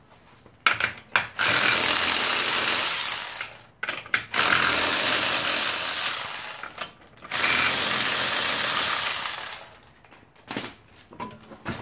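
Cordless power tool with a socket spinning off lug nuts, in three runs of about two seconds each with short blips before them. It runs freely because the nuts had already been broken loose by hand.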